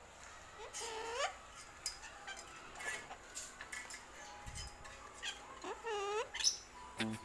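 A cockatoo giving a few short, soft, rising calls, one about a second in and a group near six seconds, with scattered faint clicks between them.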